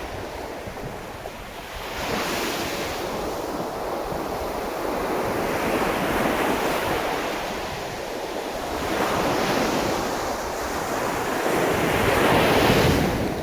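Sea waves breaking and washing in, surging about every three to four seconds, the loudest swell near the end, with wind rumbling on the microphone.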